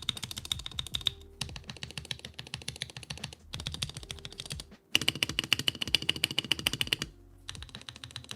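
Fast typing on a mechanical keyboard: quick runs of key clicks broken by a few short pauses.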